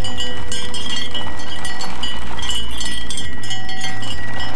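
Cowbell clamped to a Holmes pedestal fan's pole clanking and ringing irregularly, a few strikes a second, as the running fan shakes it, over a low steady hum.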